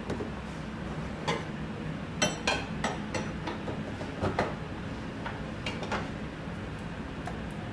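Metal clicks and clinks as an attachment is fitted onto a stand mixer's shaft above a stainless steel bowl, the loudest knocks ringing briefly about two seconds in, over a steady low hum.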